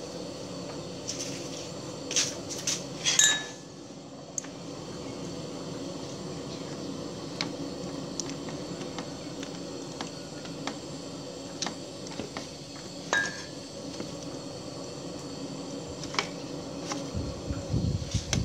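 Metal spoon clinking and scraping against a stainless steel tray as cooked fish flesh is picked off the bones: scattered sharp clinks, several together about two to three seconds in, then single ones. A steady low hum runs underneath, and a low rumble comes in near the end.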